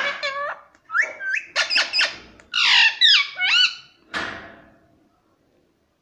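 Indian ringneck parakeet squawking and chattering in a rapid string of calls that slide up and down in pitch, ending with a harsher, noisier squawk about four seconds in; it stops about five seconds in.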